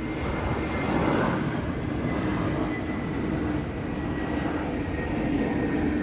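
Steady loud outdoor rumble with a faint high whine held throughout, swelling briefly about a second in.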